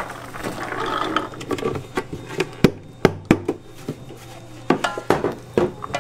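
Chopped food tipped from a plastic container into a large stainless steel mixing bowl: a soft rustling pour, then a run of sharp clicks and knocks of the container against the bowl, one or two with a brief metallic ring near the end.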